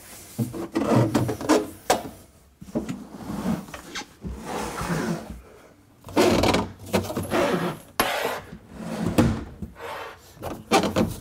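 A built-in dishwasher being shoved into its cabinet opening a few inches at a time: irregular scraping and rubbing of the machine against the floor and cabinet sides, with a few knocks.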